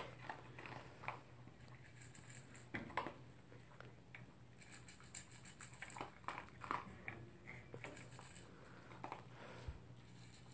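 Toy poodle eating dry food from its bowl: faint, irregular crunching and clicks of teeth and kibble against the bowl.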